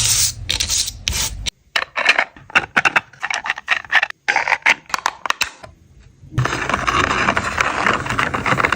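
3D-printed plastic fidget toy worked by hand: a quick, irregular run of short scrapes and clicks, then from about six seconds in a steady, continuous scrape as the parts slide.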